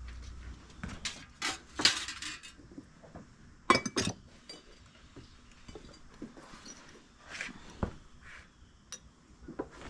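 Blown-glass flower stems clinking against one another and against a ceramic teapot as they are handled. There are a string of short, sharp clinks, with the loudest just before four seconds in.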